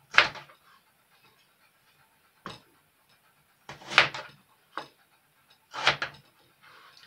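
Crinkle-cut knife chopping slices off a peeled raw potato onto a plastic cutting board: about five separate knocks of the blade on the board, a second or two apart.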